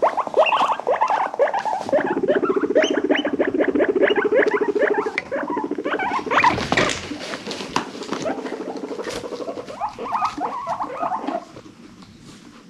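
Guinea pigs squeaking in a quick run of short rising chirps, several a second. Underneath, from about two seconds in until near the end, runs a low buzzing rumble, the purr or rumble of a guinea pig. It all stops about a second before the end.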